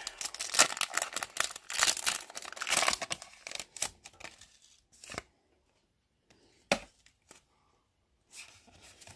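Foil wrapper of a Pokémon Team Up booster pack being torn open and crinkled, dense crackling for the first four seconds or so, then a few light rustles and a single sharp tap a little before seven seconds.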